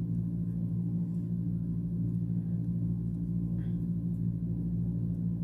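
A steady low hum made of several held tones, unchanging throughout.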